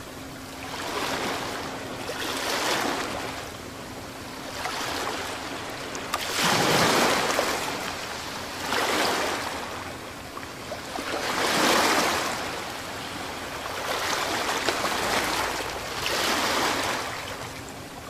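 Waves washing in slow swells, rising and falling about every two to three seconds.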